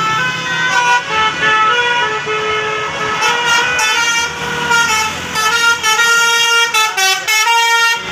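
Basuri 'telolet' musical bus horn playing a melody, several tones sounding together and changing pitch every half second or so, ending in a quick run of short toots.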